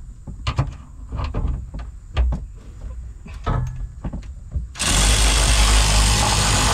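A few light clicks and knocks as a socket is fitted onto a bolt. About three-quarters of the way in, a cordless power tool starts up suddenly and runs loud and steady, tightening the hardtop's mounting bolt.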